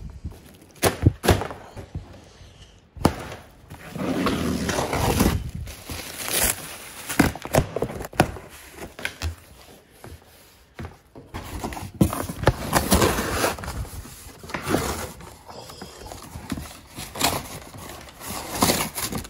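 Utility knife hacking and sawing through a large cardboard box: rough scraping stretches of blade tearing corrugated cardboard, broken up by sharp clicks and knocks against the box.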